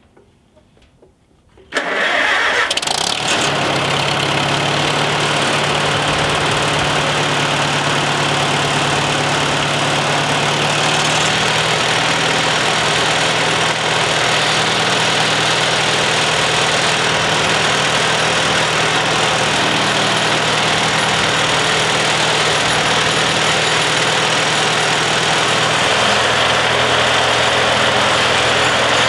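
1946 Farmall M tractor's four-cylinder engine starting about two seconds in and then running steadily at idle, freshly refilled with oil. Its pitch shifts slightly a couple of times.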